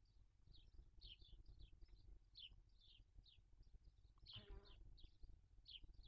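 Faint, quick series of short high falling bird chirps, about two a second, with one brief lower-pitched call about four seconds in, over a low background rumble.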